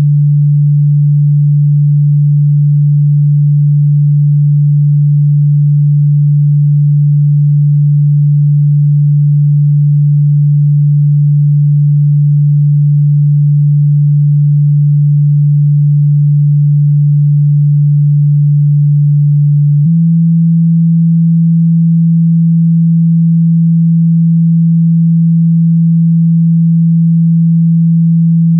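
A steady, low, pure sine tone, a synthesized meditation frequency tone. About twenty seconds in, it steps up slightly to a new pitch and holds there.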